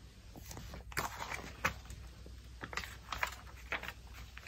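Pages of a picture book being turned and handled: scattered light paper rustles and small clicks.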